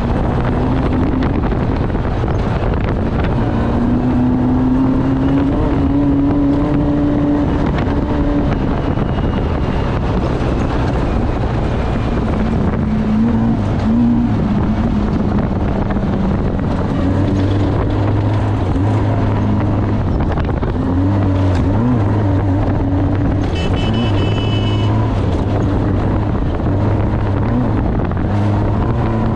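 Off-road race vehicle's engine running hard, its pitch rising and falling with the throttle over heavy rumble and wind noise. A brief high tone sounds about three-quarters of the way through.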